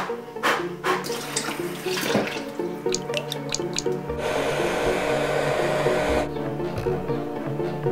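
Background music, and from about four seconds in a hand-held hair dryer blows steadily for about two seconds before cutting off suddenly.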